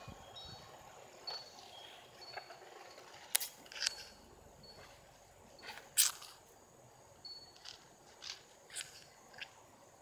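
Grass blades rustling and clicking close against the recording phone as it is pushed through tall ornamental grass, with a few sharp clicks, the loudest about three and a half and six seconds in. Faint short high chirps sound now and then behind it.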